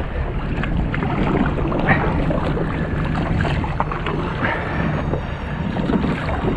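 Motorboat running on open water: a steady engine drone with wind buffeting the microphone.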